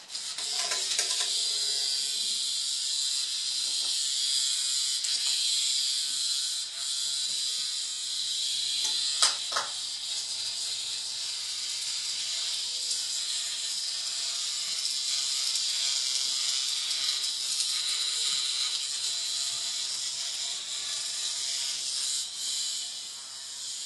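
Hexbug vibrating toy buzzing on a tile floor: a steady, high, hissing buzz, with one brief sharp sound about nine seconds in.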